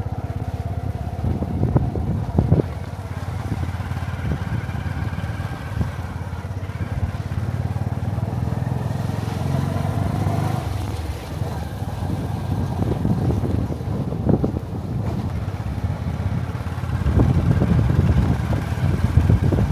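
Motorcycle engine running steadily while riding along, with a few short knocks.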